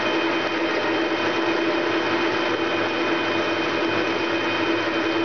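Metal lathe running under load, its cutter facing a large spinning steel disc: a steady machining noise with a constant hum through it.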